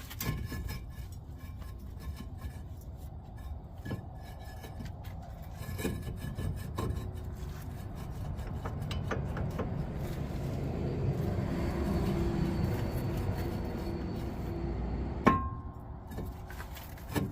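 Hand tools working on a truck's front-end parts: rubbing and scraping with scattered clicks and knocks, then one sharp knock with a brief ring near the end.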